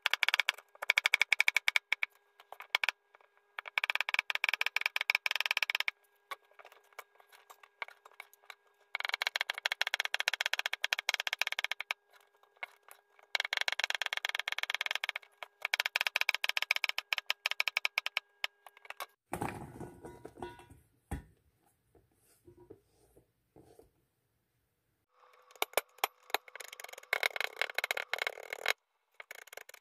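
Kitchen knife slicing a peeled sponge gourd on a plastic cutting board: quick runs of tapping cuts lasting two or three seconds each, with short pauses between them. Near the end the knife is chopping garlic.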